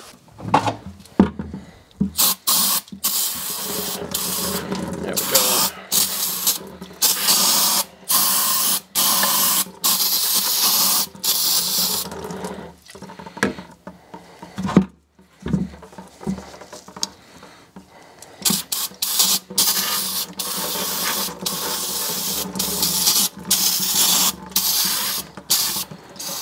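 Aerosol brake cleaner spraying in many short bursts of hiss, each a second or so long with brief pauses between, degreasing a hydraulic cylinder part.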